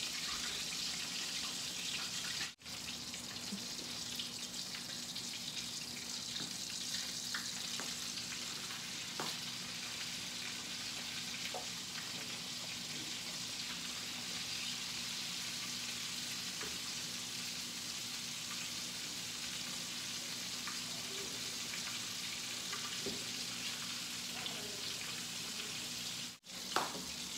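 Chicken frying in hot oil in a wok, a steady sizzle with a few faint ticks and taps. The sound cuts out for a split second twice.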